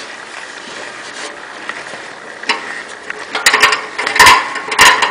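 Metal wing nut on the igniter element's mounting stud being loosened by hand inside a pellet stove's ash pan compartment: a faint hiss, then in the last second and a half a quick run of sharp metallic clicks and scrapes.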